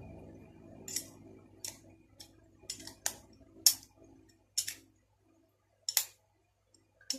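Magnetic catch being snapped shut and pulled open again and again: a run of sharp clicks at uneven intervals.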